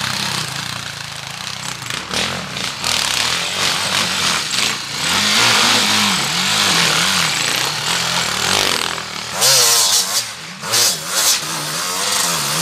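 Enduro motorcycle engines revving hard on a steep muddy climb, their pitch rising and falling again and again with the throttle. A louder burst of engine noise and hiss comes about ten seconds in.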